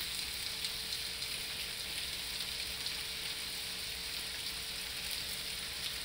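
Food sizzling in a hot pan on the stove: a steady hiss with faint scattered crackles.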